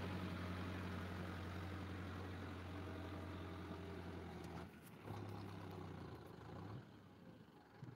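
Tractor's diesel engine idling steadily with a low, even hum. About four and a half seconds in it drops away suddenly, comes back fainter, and fades near the end.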